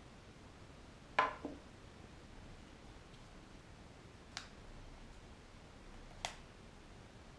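A small screwdriver set down on a table with a short double clatter about a second in, then two single sharp clicks as the plastic drone is handled.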